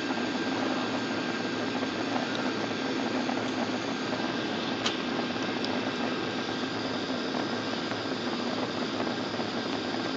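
Airliner's underwing turbofan engines and cabin noise heard from inside the cabin on approach, a steady even rush with a thin steady whine. A short click about five seconds in.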